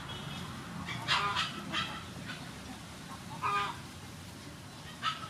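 Chickens clucking: a short run of calls about a second in, another around three and a half seconds, and more starting near the end.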